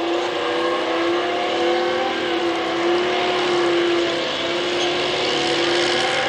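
Tank driving over rough dirt, its engine running with a steady pitched hum and a noisy rumble of the running gear.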